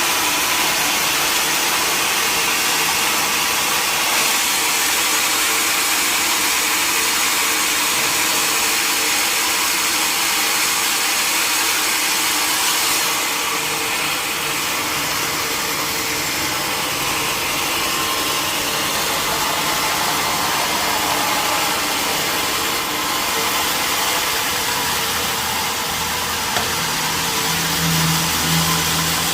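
Sawmill machinery running steadily, a constant hiss-like noise with a steady hum. Near the end a lower engine hum comes in.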